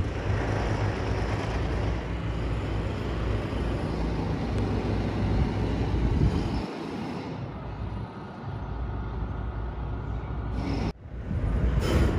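New York City Subway L train running: a steady rumble of wheels on rail, easing off somewhat about six or seven seconds in.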